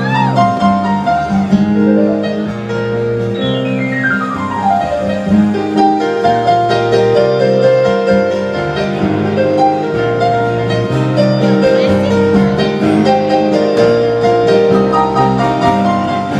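Live country band playing an instrumental break led by piano, steady chords under a melody, with a fast descending run of notes about four seconds in.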